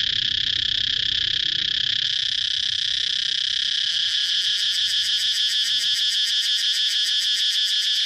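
A dense chorus of periodical cicadas: a loud, steady, high shrill buzz that takes on a fast, even pulsing beat in the second half. A low rumble sits under it in the first few seconds and fades.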